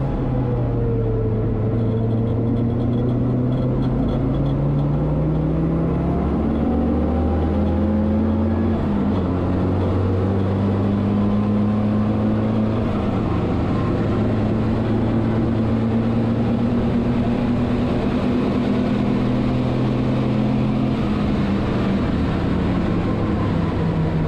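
BMW 320 race car's engine heard from inside the stripped cabin under hard acceleration, its pitch climbing and dropping back at each upshift. It then holds steady at high speed and eases off near the end as the car slows, with steady wind and road noise underneath.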